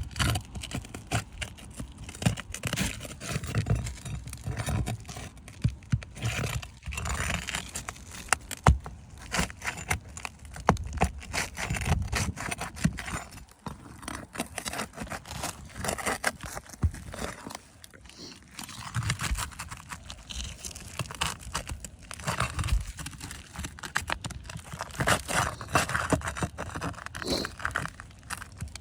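Irregular handling noises: scraping, rustling and many sharp clicks and taps, as of hard objects being handled and worked on close to the microphone.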